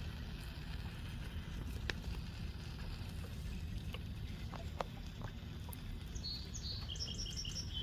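Above-grade pool pump running steadily with a low hum, drawing air through a leaking glue joint on the suction-side plumbing, with a few faint clicks. From about six seconds in, a bird chirps in quick repeated notes.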